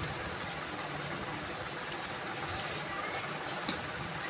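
Barber's scissors snipping at a beard, a few light clicks with a sharper snip near the end, over a steady hiss. A run of about eight quick high chirps sounds in the background between about one and three seconds in.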